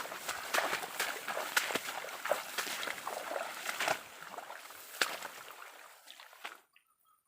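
Shallow stream water splashing and sloshing in a quick, irregular run of strokes, fading and then cutting off abruptly near the end.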